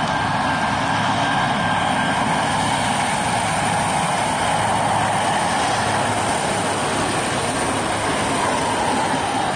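V/Line VLocity diesel multiple unit, two three-car sets coupled, passing close as it pulls away from the station: a loud, steady sound of diesel engines and wheels on the rails, with a thin high whine that fades about two seconds in.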